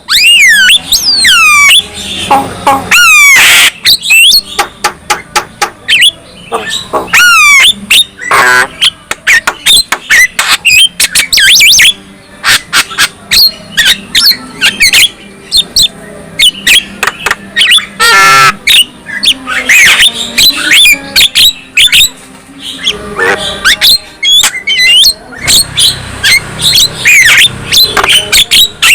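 Javan myna (jalak kebo) singing a long, varied song: rapid falling and rising whistles run together with harsh squawks, sharp clicks and rattling notes, almost without pause.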